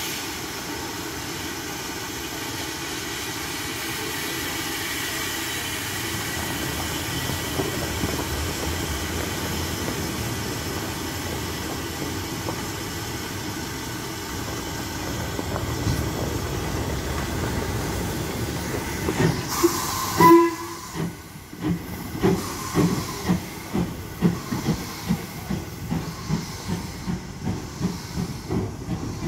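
LMS Ivatt Class 2MT 2-6-0 steam locomotive standing with a steady hiss of steam. About twenty seconds in comes a short whistle blast, then the exhaust begins chuffing in a slow, even beat of about one and a half a second as it pulls away.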